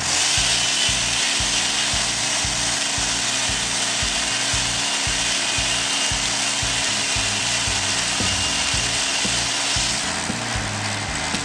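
Tractor-driven shingle mill saw cutting wood: a steady rasping hiss with a thin high whine in it, stopping about ten seconds in.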